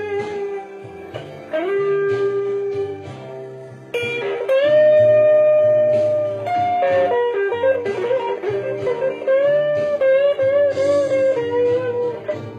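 Fender Telecaster electric guitar playing a bluesy single-note lead over a bass line, recorded on a phone. It slides up into a note, holds one long note, then plays bent notes with vibrato.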